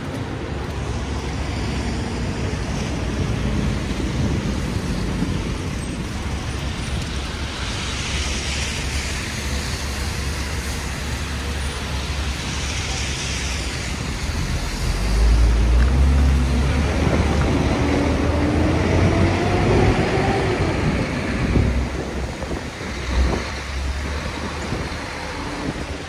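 City street traffic: a steady noise of passing vehicles. About fifteen seconds in, a heavy vehicle comes close with a deep rumble, and its engine pitch rises as it pulls away.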